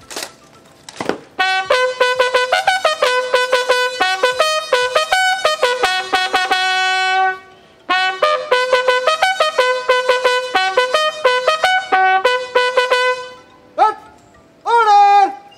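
Bugle call sounded for a salute: two long phrases of quick repeated notes, each ending on a held note, with a few more short notes near the end.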